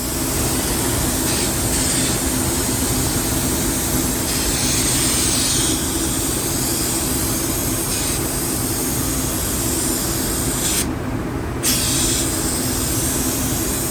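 Compressed-air paint spray gun hissing as it sprays paint into a truck's door jambs, the hiss swelling and easing with the trigger and stopping briefly about eleven seconds in, over a steady mechanical hum.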